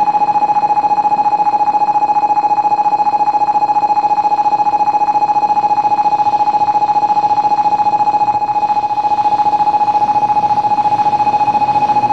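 Shinkansen platform electronic warning bell ringing continuously: a single steady tone pulsing rapidly, the alert for a train entering the station, with a faint rumble of the arriving train beneath it.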